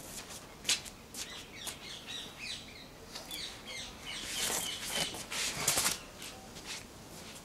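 Swishes of a short polypropylene bat (a Cold Steel Tire Boss) swung through the air, with the rustle of body movement, heaviest a little past the middle. Small birds chirp in the background.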